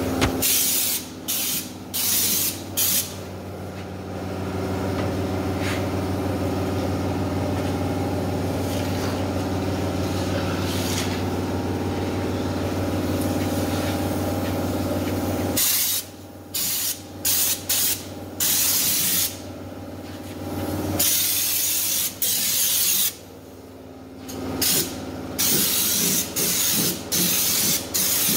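Air-line underbody spray gun (schutz gun) spraying stone guard coating from a screw-on can, in short hissing bursts, several in quick succession. Between the clusters of bursts a steady mechanical hum runs for about ten seconds.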